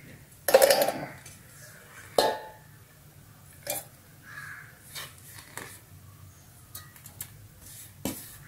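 Knocks and clinks against a stainless steel mixer-grinder jar as ingredients are tipped in. The loudest knock comes about half a second in and rings briefly, a second comes about two seconds in, and lighter taps follow.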